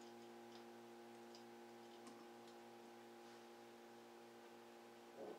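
Near silence: a steady faint hum with a few faint, scattered clicks of small metal parts and hand tools being handled as screws are fitted to a stepper motor mount.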